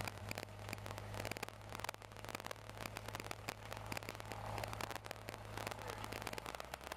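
Light aircraft's piston engine running at taxi power, heard inside the cabin as a steady low drone, with constant crackling clicks over it. The engine note drops slightly near the end.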